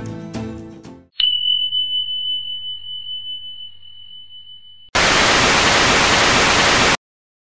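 Background music fading out, then a single bell ding that rings on and slowly fades. It is followed by about two seconds of loud TV static hiss that cuts off suddenly.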